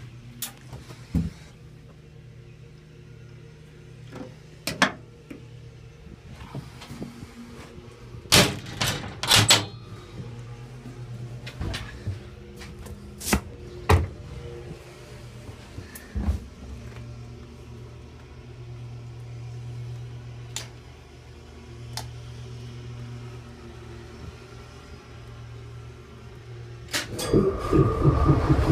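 Sharp clicks and clunks of switches and cab fittings being handled, over a faint low hum. About a second and a half before the end, one of the GE 44-ton switcher's twin Caterpillar diesel engines cranks, catches and settles into a steady, loud run.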